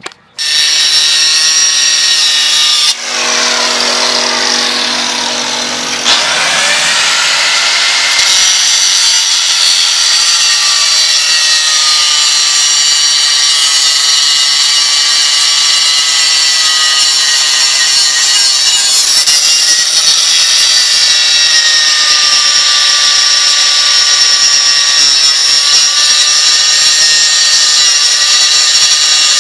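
Electric power tool, most likely an angle grinder, running flat out with a loud high whine. About three seconds in it sags and its pitch bends for a few seconds, then it recovers and holds steady, with small dips in pitch as it takes load.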